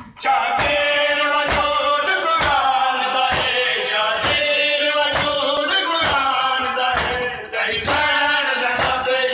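Mourners doing matam: massed hands striking chests in unison about once a second, under male voices chanting a noha lament.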